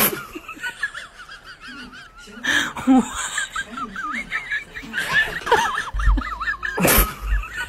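Electronic toy duck making quick warbling, quack-like sounds on and off, with a few short sharp bursts. A low rumble comes in near the end.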